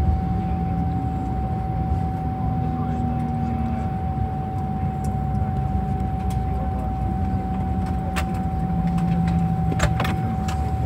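Jet airliner cabin noise while taxiing after landing: a steady engine rumble with low droning hums and a constant whine. A few sharp clicks near the end.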